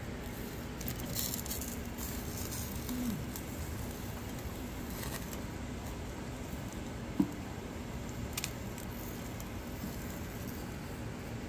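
Gas burner running steadily under whole eggplants roasting on the grate, with a few sharp clicks of metal tongs against the grate and skins as the eggplants are turned; the loudest click comes about seven seconds in.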